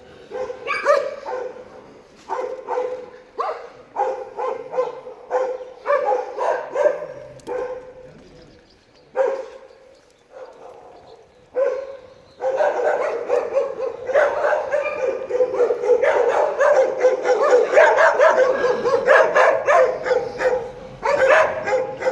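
Street dogs barking in repeated short barks, with a lull near the middle; about halfway through, the barking turns dense and continuous, several dogs at once.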